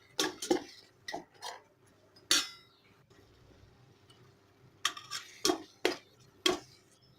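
A spoon stirring and scraping in a cooking pot: a series of short clinks and scrapes, with a pause of about two seconds in the middle.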